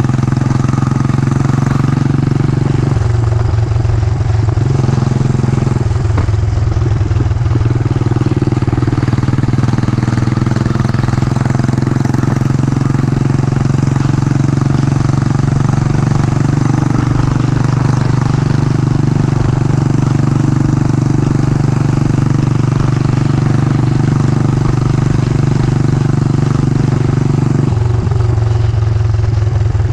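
Yamaha SR400's single-cylinder four-stroke engine running steadily under way, with a rushing haze over it. The engine note eases off briefly about three seconds in, again around six seconds, and once more near the end.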